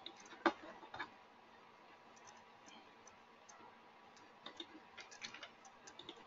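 Clicks of a computer mouse and keyboard: two sharp clicks in the first second, a pause, then a quick run of clicks in the last two seconds.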